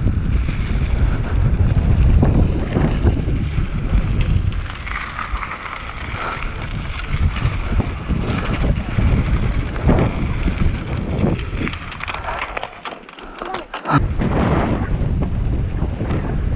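Mountain bike descending a gravel downhill trail at speed: wind buffeting the helmet camera's microphone with a steady low rumble, and tyres and bike rattling over the loose surface. About twelve and a half seconds in the rumble drops away for a moment, then a sharp knock as it comes back.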